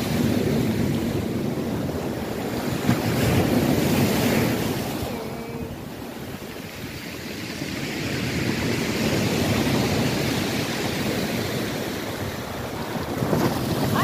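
Sea surf breaking and washing up a shingle beach, swelling twice and easing in between, with wind buffeting the microphone.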